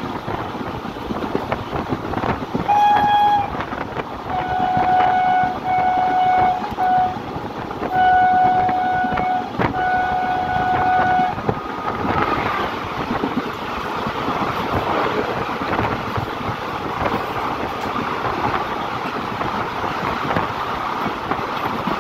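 Indian Railways electric locomotive of the Chitrakoot Express sounding its horn: a short toot about three seconds in, then a string of steady blasts, mostly long with a short one among them, until about eleven seconds. Then the locomotive and its coaches run close past, a steady rushing rattle of wheels on the rails.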